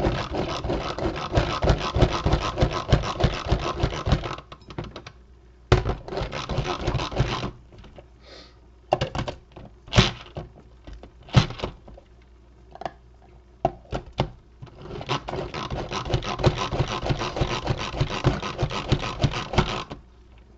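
A Pampered Chef manual food processor being pumped by hand, its plastic plunger clattering and its blades chopping chestnuts in fast strokes. Two long runs of rapid pumping, one at the start and one near the end, with a short run and a few single strokes in between.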